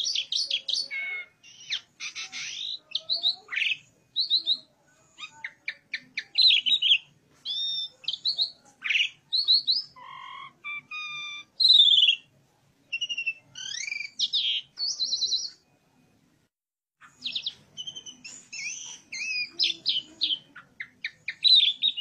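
Asian pied starling (jalak suren) singing a varied run of chirps, whistles and chattering notes, mostly high-pitched, with a short break about three-quarters of the way through.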